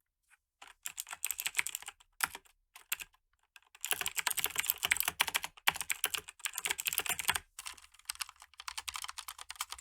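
Typing on a mechanical keyboard: quick runs of key clicks, then a denser continuous run from about four seconds in.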